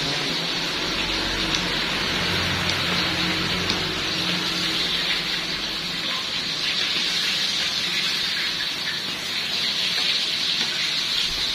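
Oil sizzling in a deep fryer, a steady crackling hiss, with a low hum underneath for the first few seconds.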